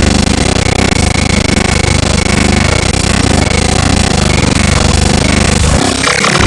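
Dark-MIDI (black-MIDI-style) rendition of a Nokia ringtone, so crammed with simultaneous notes that it comes out as a loud, dense, distorted wall of sound with a pulsing low end. Near the end the low part drops away, leaving a bright, buzzy high chord.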